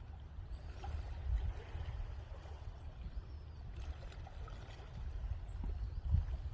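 Beach ambience: small waves lapping and trickling at the shoreline, with scattered small splashes, over a low, unsteady rumble of wind on the microphone.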